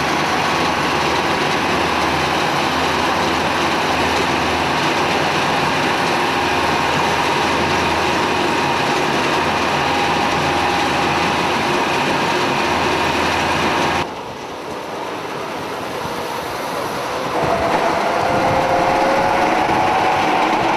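Military armoured vehicle on the move, a loud steady rumble of engine and running gear with a faint whine over it, heard from the open hatch. About fourteen seconds in it drops suddenly, then rises again a few seconds later with a clearer whine.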